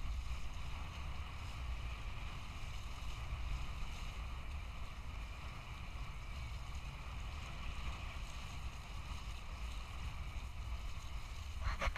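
Wind buffeting the microphone in a steady low rumble, with a faint even hiss above it. A few sharp knocks come right at the end.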